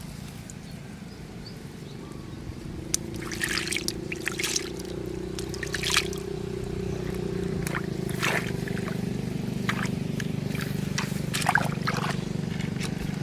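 Water sloshing and splashing in short spurts, as if hands or feet are moving through shallow field water, over a steady low drone.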